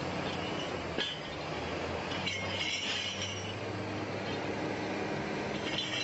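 A steady low machine hum with two spells of high metallic clinking and squealing, one midway and one near the end, and a single sharp click about a second in.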